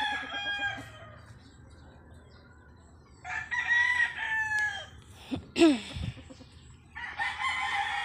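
Gamecock roosters crowing three times, one crow after another, each a long cock-a-doodle-doo of about a second and a half. Between the second and third crows there is one short, sharp, loud sound that slides downward in pitch.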